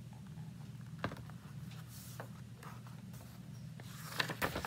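Pages of a hardcover picture book being handled and turned: a soft click about a second in, then a short flurry of paper rustles and clicks near the end, over a steady low room hum.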